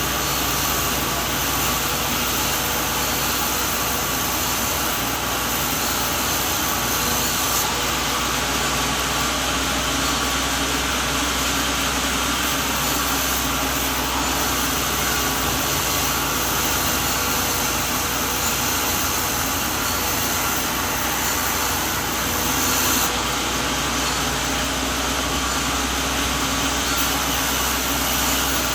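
Sawmill machinery running steadily: a continuous mechanical drone under a loud, even noise, with no clear strokes or changes.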